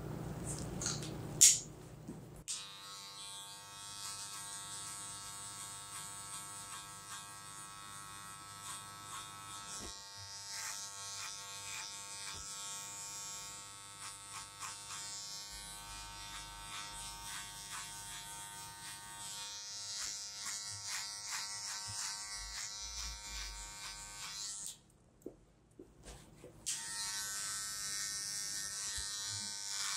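Electric hair trimmer buzzing steadily as it cuts around the sideburn, ear and neckline, after a sharp click about a second and a half in. It stops for about two seconds near the end, then buzzes again.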